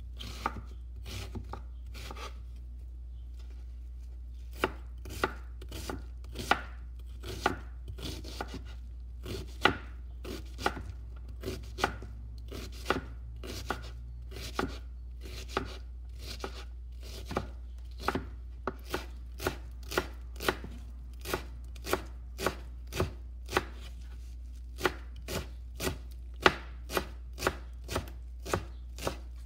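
Chef's knife chopping onion and then cilantro on a wooden cutting board: the blade knocks on the board, sparse and faint for the first few seconds, then steady at about two chops a second.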